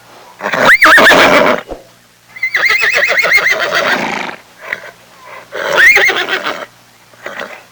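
Horse whinnying three times, each call rising high and quavering, the middle one the longest, with a short fainter call near the end.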